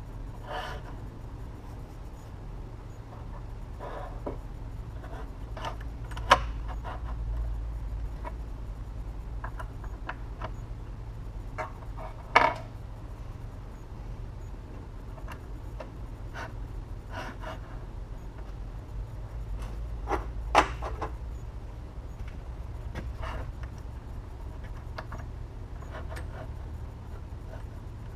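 Small metal clicks and taps from a tool-sharpening jig's fence and work head as they are handled and adjusted, with three sharper clicks spread through, over a low steady hum.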